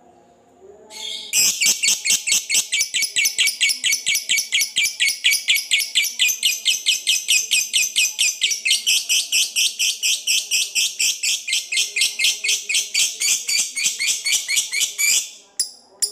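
Fischer's lovebird giving a long ngekek chatter: a high-pitched call note repeated about four times a second without a break for some fourteen seconds, starting about a second in. Near the end it breaks into a few separate sharp chirps.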